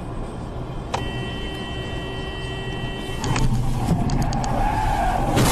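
Car driving, heard from inside the cabin through a dash cam, with steady road rumble. About a second in, a steady tone sounds for about two seconds. The noise then grows louder with a wavering squeal, and a loud bang hits right at the end.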